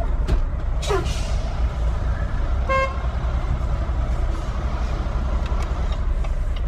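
Volvo semi-truck's diesel engine running, a steady low rumble heard from inside the cab. A brief falling tone sounds about a second in, and a short beep near three seconds.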